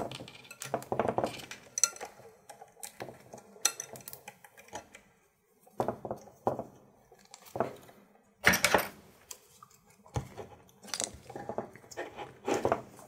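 Small clicks, taps and rustles of hands working nylon zip ties through a 3D-printed antenna tube mount on a carbon-fibre quadcopter frame, with a louder rasp about two thirds of the way through as a tie is pulled.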